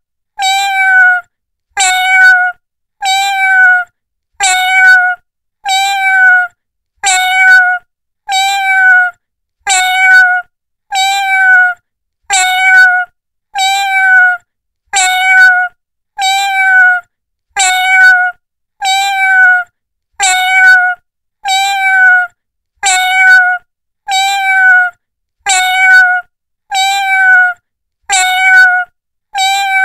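Domestic cat meowing, the same short meow repeated over and over at an even pace, about one every 1.2 seconds.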